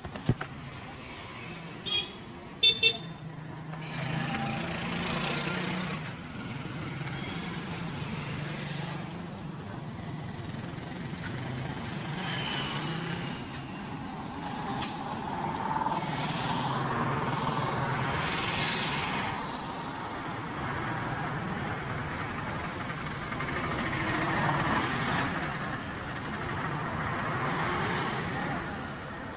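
Street traffic running steadily, with a few short horn toots about two to three seconds in.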